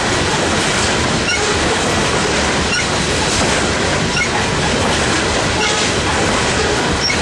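Freight train cars rolling past at speed: a steady, loud rumble and rattle of wheels on rails, with a short high click about every second and a half as the wheels pass.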